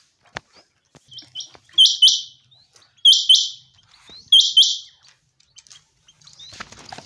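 Common quail calling its song: quick groups of short, sharp notes, repeated about every 1.3 seconds. A faint rustle with a few knocks comes near the end.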